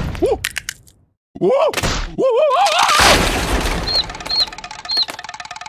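Cartoon sound effects of an egg hatching: eggshell cracking, a wavering cartoon-creature cry, then the shell bursting apart with a loud crash about three seconds in, followed by three short high chick chirps.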